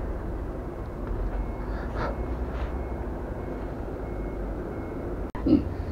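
Steady low rumble, with a short, louder low sound about five and a half seconds in.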